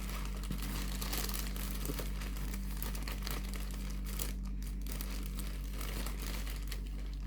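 Parcel packaging crinkling and crackling continuously as a package is handled and pulled open, over a steady low hum.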